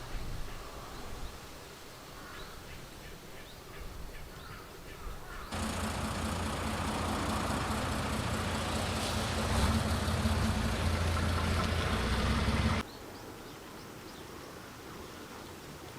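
Faint chirps over quiet surroundings, then a diesel railcar's engine running steadily close by with a low hum. It cuts in suddenly about five seconds in and cuts off just as suddenly some seven seconds later.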